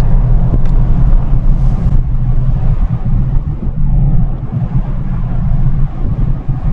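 Steady low rumble of a vehicle's engine and tyres as it drives along a road, heard from inside. There are a couple of faint clicks near the start.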